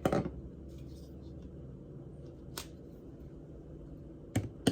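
A few sharp clicks and knocks from plastic appliance parts being handled: one at the start, one in the middle and two close together near the end, over a low steady hum.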